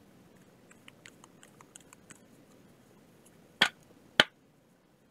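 Tarot cards being handled, with light scattered clicks, then two sharp knocks about half a second apart a little past halfway through.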